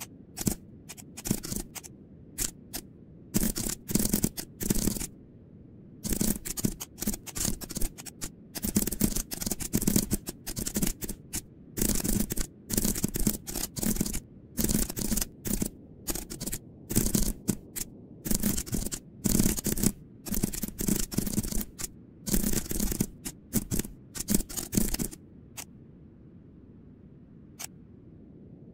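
Computer keyboard typing: rapid runs of keystroke clicks in bursts, with short pauses and a longer lull near the end.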